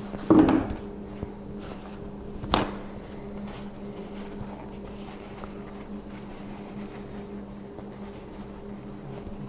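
A steady low mechanical hum fills the room, with faint paper-towel rustling as the plastic oil-fill cap and dipstick is wiped clean. A short sound comes just after the start, and a sharp click about two and a half seconds in.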